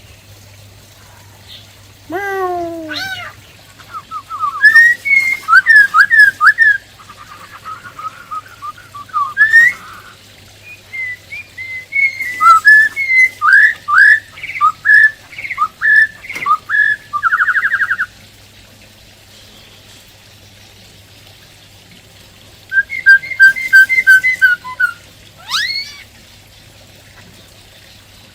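Black-throated laughingthrush singing: loud bursts of varied whistled notes, sweeping calls and fast trills, with a pause of a few seconds before a last burst. A steady low hum runs underneath.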